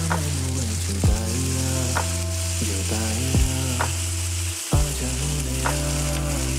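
Oil sizzling in a hot non-stick tawa as marinated paneer tikka skewers are laid in, under background music with steady bass notes and a deep drum thud every second or two.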